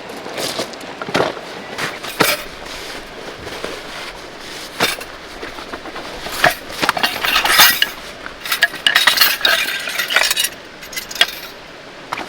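Hard objects such as cookware or utensils being handled: a string of sharp clinks and knocks, getting thicker into a run of clattering past the middle.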